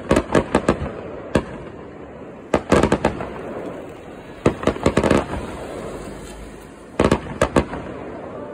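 Fireworks display: small aerial shells bursting in quick clusters of sharp bangs, one volley about every two seconds, with a fading rumble between the volleys.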